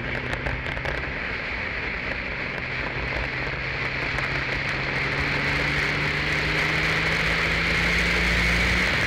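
Single-seater race car's engine pulling under acceleration, its pitch rising slowly and steadily, then dropping suddenly near the end. A loud steady rushing noise runs underneath.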